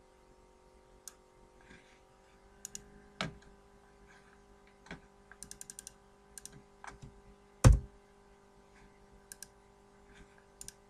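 Computer mouse clicks and keyboard keystrokes, scattered, with a quick run of keystrokes about five and a half seconds in and one louder thump near eight seconds, over a faint steady hum.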